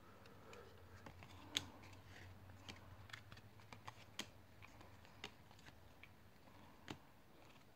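Faint clicks and flicks of cardboard baseball cards being flipped one by one from one hand to the other, with a sharper snap about one and a half seconds in and others near four and seven seconds.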